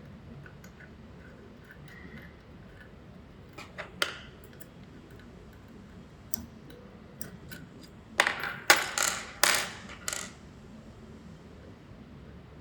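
YAG laser welder firing: scattered faint clicks, a sharper snap about four seconds in, then a quick run of about six loud, sharp snaps around eight to ten seconds in.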